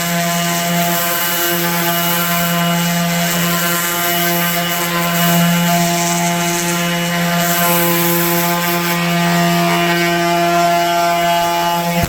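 Electric sander running steadily as it sands a wooden tabletop: a constant motor hum with a hiss of abrasive on wood.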